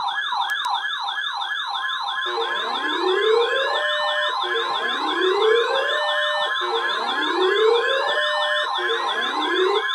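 Several electronic sirens sounding together: a fast yelp sweeping up and down about five times a second, joined by a steady tone and then by a slower siren that rises in pitch and restarts every couple of seconds.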